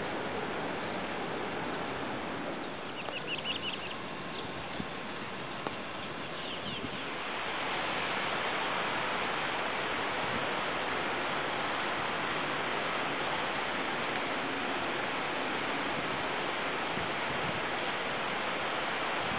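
Steady outdoor background hiss with a few faint, high, short bird chirps about three seconds in and again about six seconds in. The hiss grows a little louder about eight seconds in.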